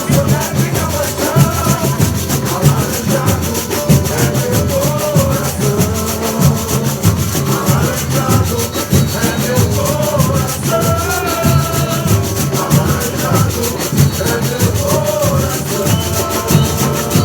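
Samba school bateria playing a steady samba groove: deep surdo bass drums beating under a dense, continuous clatter of snare drums and shaker rattles.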